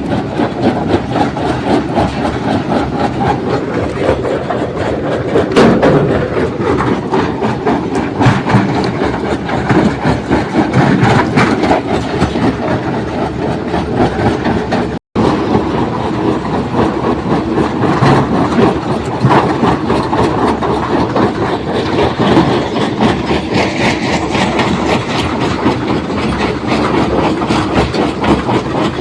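Stone crusher plant running, with a continuous heavy clattering rattle of rocks being crushed and shaken through the machinery. The sound cuts out for an instant about halfway through.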